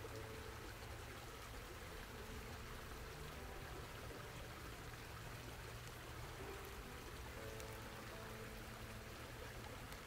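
Shallow stream running over mossy rocks: a steady, faint babble of flowing water.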